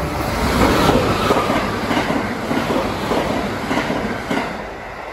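Limited express train passing through the station without stopping, its wheels clattering over the rails. The rush swells within the first second and fades toward the end.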